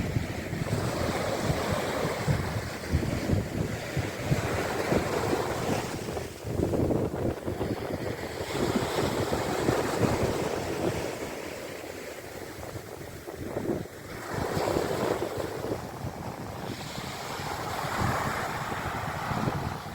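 Mediterranean Sea waves washing onto the shore, the surf swelling and falling back every few seconds, with wind buffeting the microphone.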